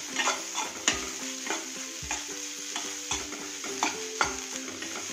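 A metal spoon stirring and scraping grated coconut frying in ghee in a metal kadai. The spoon clicks against the pan at an irregular pace, about one to two times a second, over a steady sizzle.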